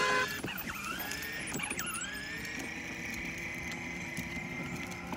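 Huffy 6V battery ride-on toy Vespa scooter: the end of its electronic horn beep at the very start, then its small electric drive motor whining as it drives off. The whine's pitch dips twice in the first two seconds and then holds steady.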